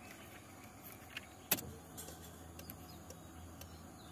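A click about a second and a half in, then the newly fitted electric fuel pump of a Nissan Sentra B14 starts a faint steady hum as the key is turned on, priming the fuel line before the engine is started. The pump is plainly heard running, so the new pump works.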